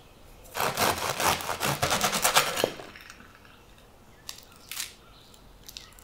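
The crisp crust of a homemade wholemeal loaf crackling and crunching as a serrated bread knife cuts through it, a dense run of crackles lasting about two seconds. A few faint separate crackles of crust follow near the end.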